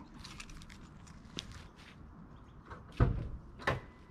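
Footsteps, then the Nissan GT-R's car door being opened and shut as the driver gets in, heard as two loud thuds about three seconds in, less than a second apart; the engine is not yet running.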